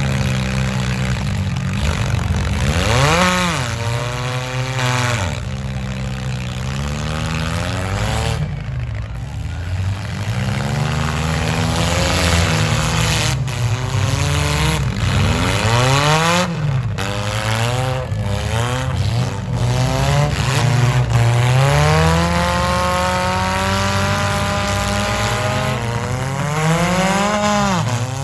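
Demolition derby cars' engines revving hard, their pitch climbing and falling again and again over the steady low drone of other engines running.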